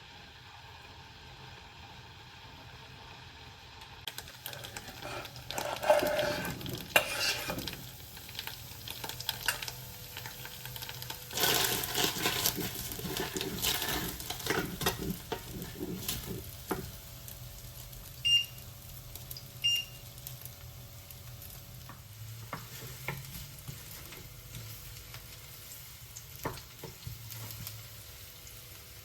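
Home-kitchen cooking: food sizzling in a pan while it is stirred, with spells of scraping and clattering of utensils and pans. Two short electronic beeps sound about 18 and 20 seconds in.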